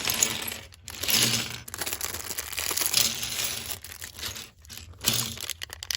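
Plastic Lego parts bags being torn open and crinkled in the hands, in irregular rustling bursts, with a run of short clicks near the end.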